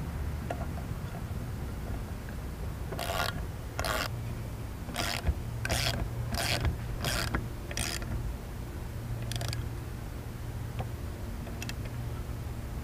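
Ratchet wrench clicking in about eight short strokes, roughly two-thirds of a second apart, with one more after a pause, as the nut holding a trolling motor's propeller is tightened onto its shaft.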